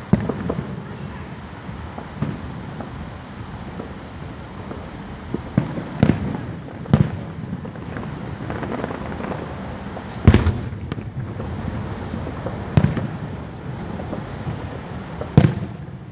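Aerial fireworks exploding, a string of sharp booms and bangs over a steady rumble, the loudest about ten seconds in.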